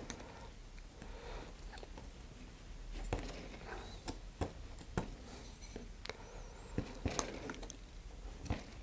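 A hobby knife trimming the edge of a small fiberglass sled: faint scraping with scattered sharp little clicks, a few louder ones about three, four and a half, five and seven seconds in.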